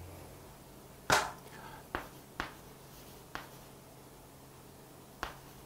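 Chalk on a chalkboard: about five short, sharp taps scattered through the stretch as words are written, over a faint steady hum.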